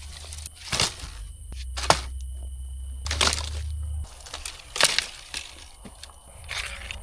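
Dry wood being snapped and broken for the fire, about five sharp cracks spaced a second or so apart.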